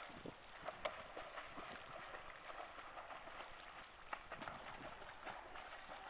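Faint splashing of a swimmer's strokes and kicks in a pool, heard as a soft, steady wash of water noise. A few sharp clicks stand out, about a second in and again about four seconds in.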